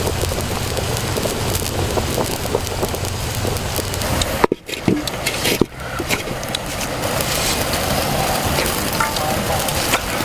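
Wood cooking fire crackling and popping, a dense run of small snaps over a steady hiss, with a brief drop-out about four and a half seconds in.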